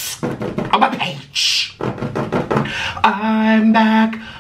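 A man's voice making beatbox-style mouth sounds and scat vocalising: quick clicks, puffs and short vocal bursts, then a held sung note about three seconds in.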